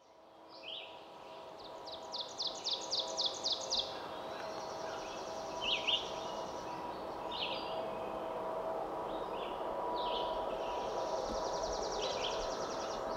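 Songbirds singing in woodland: a run of about eight quick, high notes growing louder near the start, then trills and scattered chirps, over a faint steady hum.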